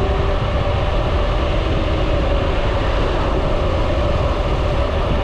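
Wind buffeting the microphone of a camera riding along on a moving gravel bike, a loud, steady rush with low rumble from the tyres on the road.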